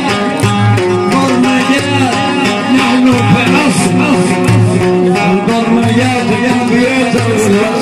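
Live Upper Egyptian folk music played loud through a microphone and speakers: a male singer over instruments, with bass notes repeating in a steady pattern.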